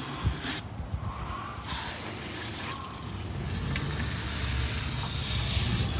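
Pressure washer spraying water onto a car frame, the hiss of the jet coming and going in short stretches, with a low rumble growing louder toward the end.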